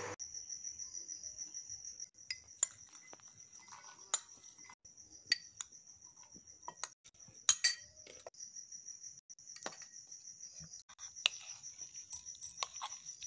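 Metal spoon clinking and scraping against steel bowls in scattered sharp clicks while food is scooped and mixed, with a cricket chirping steadily in the background.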